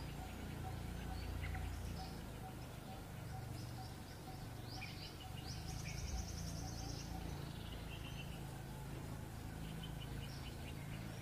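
Forest ambience: scattered high chirping calls and a longer trill about six seconds in, over a low steady rumble.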